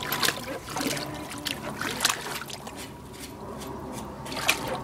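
A dog pawing and splashing water in a small pond basin: irregular splashes and sloshing, easing off about three seconds in and picking up again near the end.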